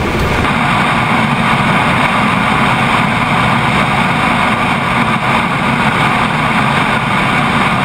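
Steady, loud rushing of air and jet engine noise beneath a Boeing 777 in flight on descent, with its main landing gear extended.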